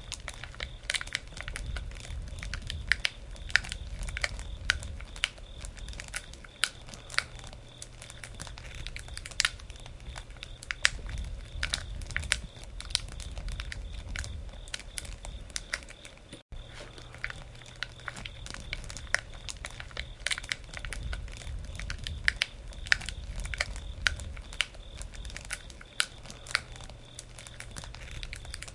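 Wood campfire burning, crackling with irregular sharp pops and snaps over a low steady rumble, dropping out for an instant about halfway through.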